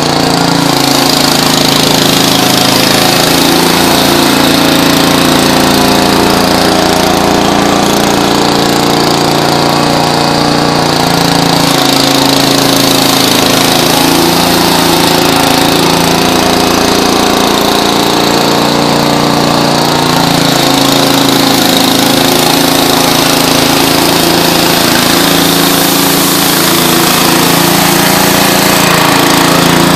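Small gasoline engine running steadily, its pitch dipping and recovering slightly every few seconds.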